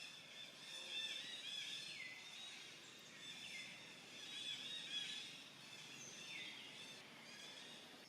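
Faint, high-pitched animal calls repeating over a soft background hiss, several of them sliding down in pitch at the end.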